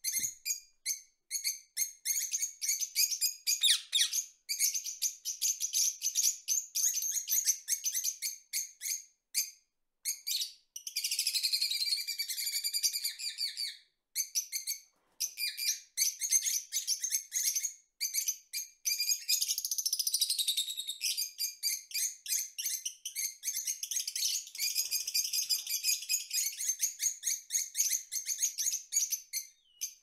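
A flock of parrots chirping and chattering in rapid, high calls almost without pause, with a few brief lulls.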